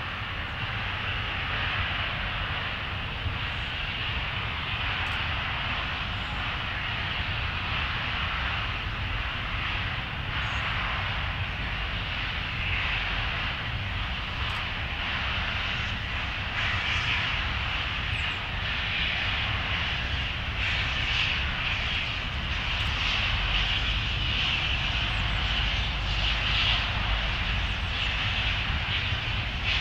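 Steam locomotive starting away, a steady roar of escaping steam hiss over a low rumble, growing louder over the last ten seconds or so.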